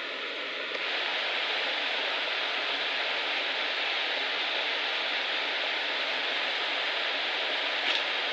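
Steady rush of a waterfall's water pouring over rocks, getting louder about a second in and then holding steady, with a brief click near the end.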